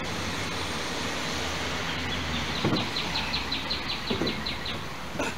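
Spare tire on a steel wheel being worked on its trailer mount: two dull knocks over a steady low hum. A quick run of high chirps, about six a second, sounds through the middle.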